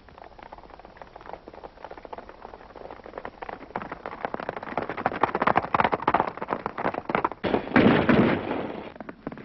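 Galloping horses' hoofbeats, a fast patter that grows louder, with a loud shot near the end.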